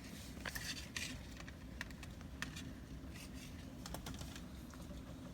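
Rain falling, with raindrops ticking irregularly on a nearby hard surface over a steady low rumble of rainfall.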